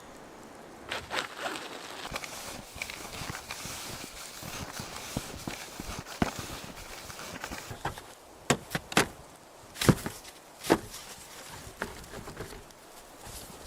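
Footsteps crunching through snow, with a few loud, sharp snaps or knocks clustered just past the middle.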